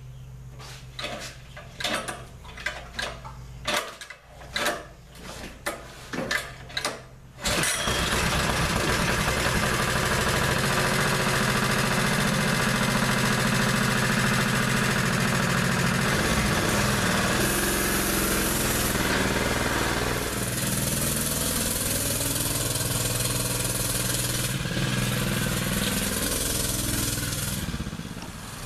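Pull-started Predator 212 single-cylinder four-stroke engine on a mini bike: a run of sharp tugs and coughs about every half second, then the engine catches about seven and a half seconds in and runs steadily. Its pitch and level shift from about seventeen seconds in.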